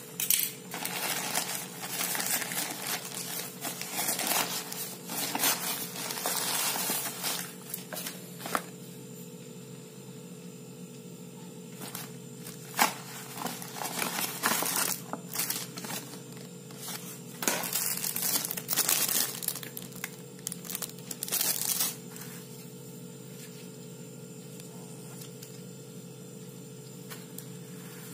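A white plastic courier mailer bag is torn open and crinkled by hand, with dense rustling for the first several seconds. After that come intermittent bursts of crinkling and clicks as a cardboard box and plastic pieces are handled.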